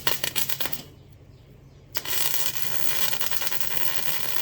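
Electric arc welder laying tack welds on the smoker's steel: a short crackling burst at the start, then a steady crackle and buzz of the arc from about two seconds in.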